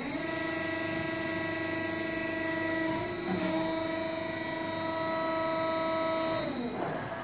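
Hydraulic pump and Siemens inverter-driven main motor of a 110-ton CNC press brake whining through a bending stroke. The pitch rises as it starts, holds steady with a brief hitch about three seconds in, then drops and fades near the end.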